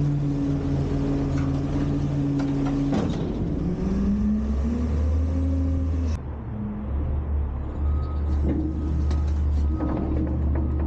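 Front-load garbage truck's diesel engine running, rising in pitch about three seconds in as it revs up for the hydraulics. About six seconds in the sound changes abruptly to a low, steady engine drone with faint repeated beeping.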